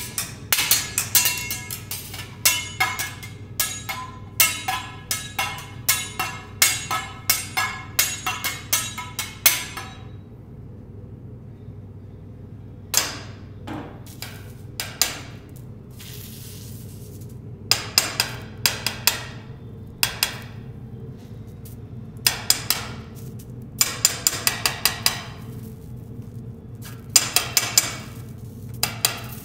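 Metal teppanyaki spatulas and knife clanking against the steel griddle and each other in quick runs of ringing strikes: a dense run for about the first ten seconds, a pause, then shorter bursts.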